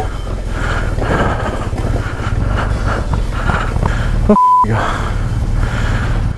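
Adventure motorcycle engine running steadily at low revs on a gravel track, with wind noise. About four seconds in, the sound briefly cuts out and a short high beep sounds.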